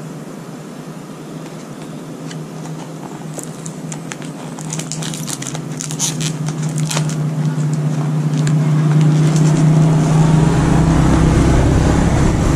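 A motor vehicle's engine humming and growing steadily louder as it approaches. Partway through, the plastic packaging crackles as it is opened.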